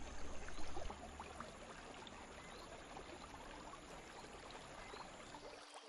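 Faint water trickling among rocks: a low, even hiss with many small scattered ticks.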